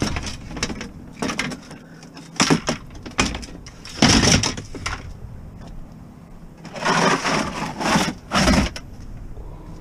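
Knocks and scrapes of an empty hard plastic tote bin being pulled and shifted about on a van's diamond-plate metal cargo floor. They come in several bursts of clatter, the loudest about four seconds in and again near the end.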